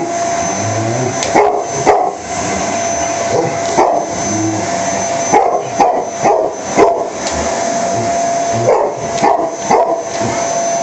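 A vacuum cleaner runs with a steady motor whine while a dog barks repeatedly, in short bursts of two or three barks at a time, about ten barks in all.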